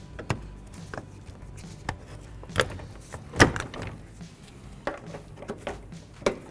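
Plastic push-pin clips being pried out of a plastic cover with hand tools, and the cover being handled: a string of irregular clicks and knocks, the loudest a little past the middle.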